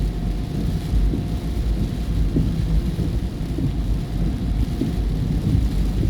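Steady low rumble of a car driving on the road, heard from inside the vehicle, with a faint steady whine above it.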